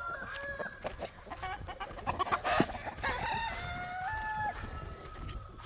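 A flock of chickens clucking and calling, with several drawn-out, steady-pitched calls, among them rooster crows.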